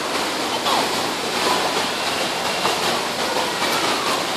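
Steady rushing and sloshing of water in a shallow stingray touch tank, its surface churned by rays crowding at the edge.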